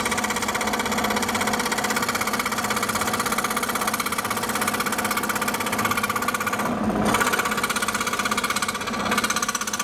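Scroll saw running, its blade reciprocating rapidly as it cuts a curve through a thin sheet workpiece: a steady, fast chatter.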